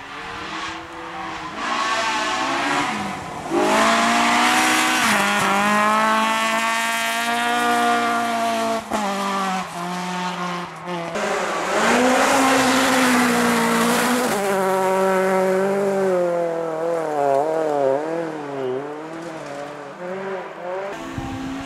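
Rally car engines under hard throttle on a gravel stage, revving up through the gears and dropping at each shift, with gravel noise from the tyres. Near the end the engine note wobbles quickly up and down.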